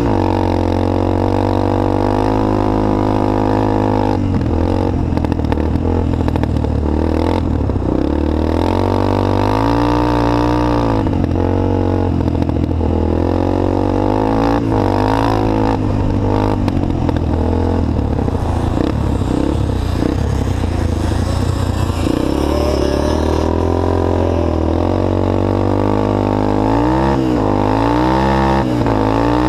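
ATC three-wheeler engine running under way, its pitch climbing and dropping again and again as the rider gets on and off the throttle. Short clatters mix in as the machine rides over rough snow.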